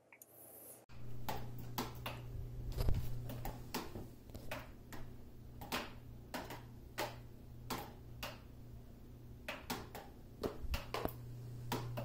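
Water dripping from a leaking ceiling into plastic buckets and containers: sharp, irregular drips, about one or two a second, starting about a second in over a steady low hum.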